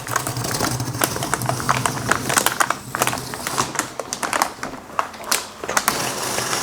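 Motherboard packaging crinkling and crackling as the board is pulled out of it: a dense run of irregular clicks and rustles.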